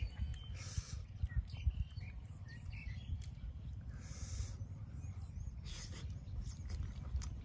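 Birds chirping faintly over a steady low rumble of wind on the microphone, with three short scraping noises as a spoon scoops boiled duck egg and is put in the mouth.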